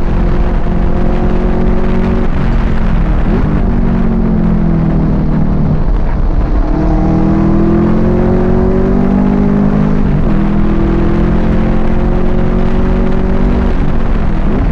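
Muscle car engine heard from inside the car at track pace: the engine note falls for a couple of seconds, then climbs again under hard acceleration, with short dips at gear changes near the middle and near the end. Steady wind and road noise run underneath.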